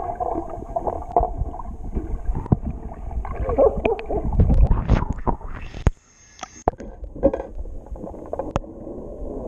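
Muffled sloshing and gurgling of pool water heard through a submerged camera, with scattered knocks and clicks. The noise drops out suddenly for a moment about six seconds in.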